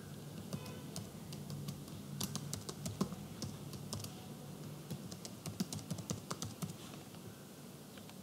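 Computer keyboard being typed on: an irregular run of key clicks that stops near the end, over a faint steady low hum.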